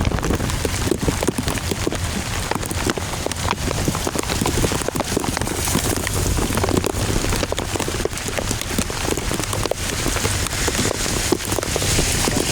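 Heavy rain in a storm downpour: a dense, steady patter of drops striking a surface, with a low rumble underneath.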